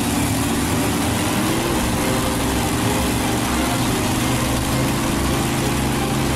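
Sound effect of a small engine running steadily as the motor of a toy Lego drill vehicle: an even, rough drone with a hiss over it.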